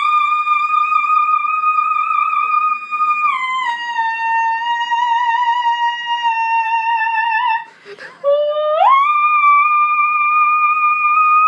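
A grey shorthair cat yowling in long, drawn-out, wavering howls, the frightened cry of a cat being held. The pitch steps down about three and a half seconds in, breaks off briefly near eight seconds, then slides back up into another long howl.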